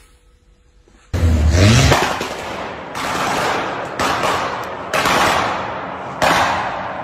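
Turbocharged Audi A4 revs once, then its exhaust backfires in four loud bangs about a second apart, spitting flame. Each bang echoes off the concrete of a parking garage.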